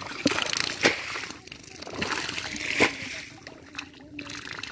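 Shallow muddy water splashing and sloshing as hands work through it, with three sharp louder splashes.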